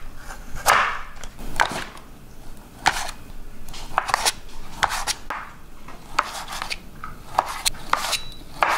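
Kitchen knife slicing Vietnamese sausage into thin rounds, the blade knocking on the cutting board with each cut. About a dozen sharp, unevenly spaced knocks come roughly one a second.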